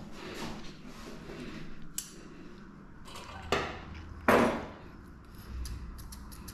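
Two sharp clacks a little under a second apart, the second the loudest with a brief ring, over light rubbing and scratching.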